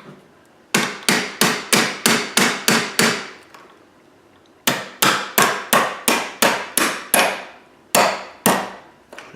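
Hammer blows on an EST SIGA-278 fire alarm pull station, knocking dents out of its housing. There are two quick runs of about ten blows at roughly four a second, each blow ringing briefly, and then two more blows near the end.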